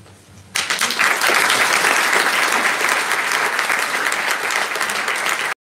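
Audience applauding, starting about half a second in and cutting off suddenly near the end.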